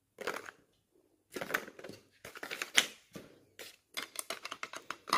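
Plastic kit packaging and bags being handled: irregular runs of light clicks and crinkles with short pauses between them, busiest near the end.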